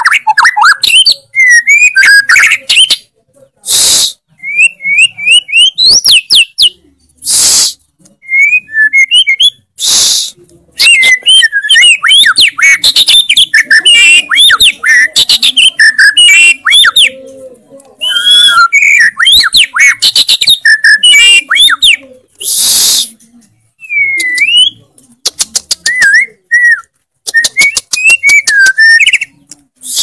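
White-rumped shama singing nonstop: fast whistled phrases that slide up and down, mixed with rapid clicking trills and a few short, harsh, hissing notes.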